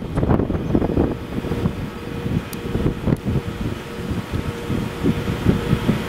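Class 189 electric locomotive approaching with a freight train: an uneven rumble of wheels on rail under a faint steady electric hum, with wind buffeting the microphone.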